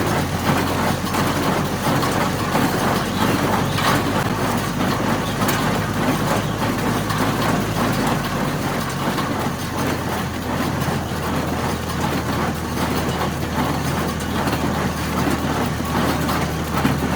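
Tractor engine running steadily while it drives a Welger AP51 small square baler, whose mechanism clatters as it takes in hay.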